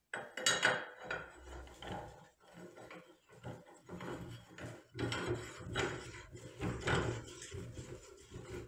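Steel rifle receiver being screwed by hand onto the threaded breech of a barrel held in a vise: irregular metallic scraping and light clinks of steel on steel with hand handling noise.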